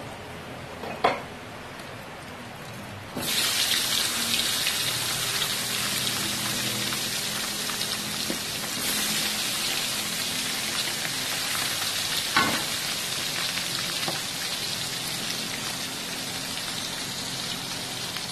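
Small mackerel (ikan cue) frying in hot oil in a wok: a softer hiss gives way suddenly, about three seconds in, to loud steady sizzling as the fish meet the oil. A sharp knock comes early on and another about twelve seconds in.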